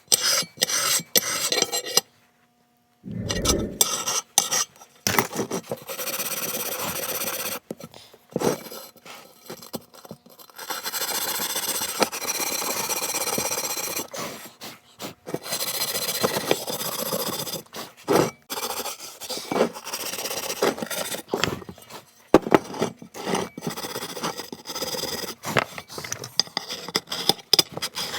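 Hand file and wire brush rasping and scraping in repeated strokes across a metal gasket surface of a snowmobile two-stroke engine, taking off paint so the new gasket can seat and seal in the coolant. There is a brief silent gap about two seconds in.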